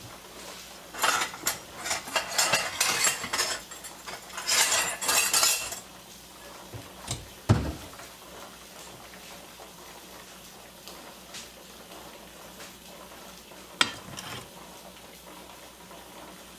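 Measuring cup scooping and scraping through flour, a run of scraping strokes over the first few seconds, then a single low thump and, later, a sharp click as the flour is tipped into the mixing bowl.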